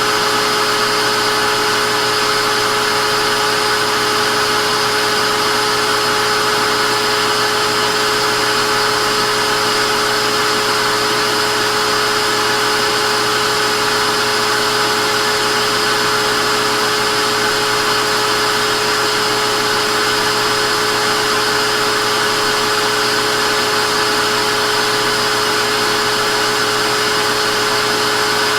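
Vacuum cleaner running steadily: a constant motor whine with several fixed tones over a loud airy hiss.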